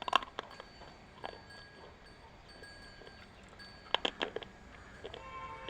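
Slate pencil being bitten and crunched with the teeth: sharp snapping crunches at the start, one more about a second in, and a quick cluster about four seconds in.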